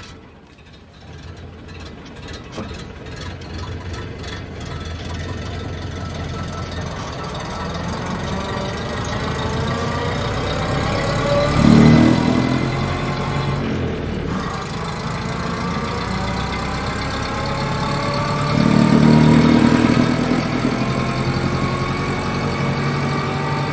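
Ford Model A's four-cylinder engine pulling the car away and accelerating, its pitch rising through the gears with a short break about halfway through, as at a gear change. Two louder low-pitched swells stand out partway through.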